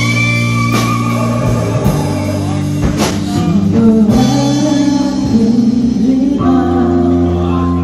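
Live rock band playing: electric guitar holding and bending notes over bass and drums, then a male voice comes in singing partway through.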